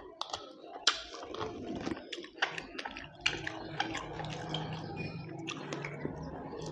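Chewing while eating mutton curry: many short, irregular mouth clicks and smacks.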